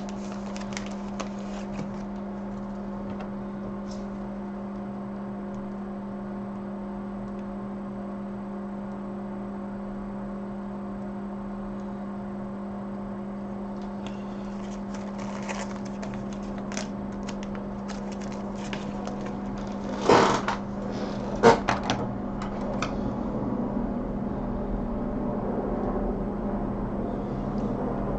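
Steady electrical hum from bench equipment, with scattered clicks and knocks of small parts and tools being handled in the second half, the two loudest close together about two-thirds of the way through.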